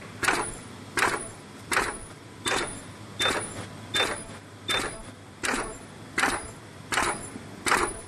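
Plastic pouch making machine running through its cycle: a sharp mechanical clack about every three quarters of a second over a steady machine hum. A short high beep sounds with a few of the strokes partway through.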